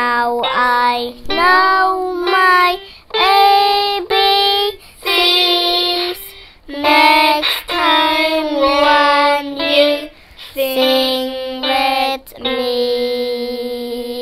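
A young girl singing into a microphone in short phrases with brief breaks, holding one long note near the end, over a simple electronic keyboard accompaniment.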